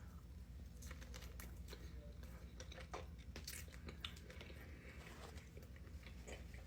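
Close-up chewing of the soft last piece of an andouille sausage sandwich: faint, irregular wet mouth clicks and smacks.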